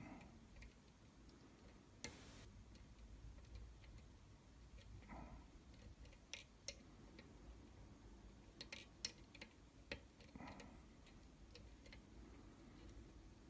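Faint, irregular clicks and ticks of a lock pick working the pins inside a pin-tumbler challenge lock, about a dozen scattered sharp clicks over a low background hum.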